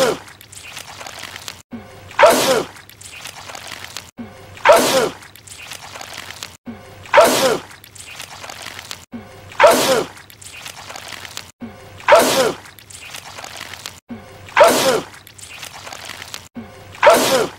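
A man's wet sneeze, a loud "ah-choo" whose voice falls in pitch, repeated as an identical loop about every two and a half seconds, eight times.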